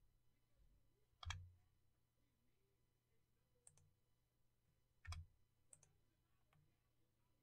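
Near silence broken by about five faint clicks of a computer mouse and keyboard, the loudest about a second in.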